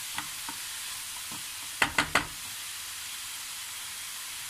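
Chopped onions and cumin seeds sizzling steadily in hot mustard oil in a frying pan as they start to brown, stirred with a wooden spatula. About two seconds in, the spatula knocks sharply against the pan three times in quick succession.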